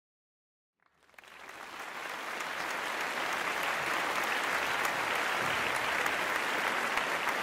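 Applause: many hands clapping, fading in from silence about a second in, then holding steady.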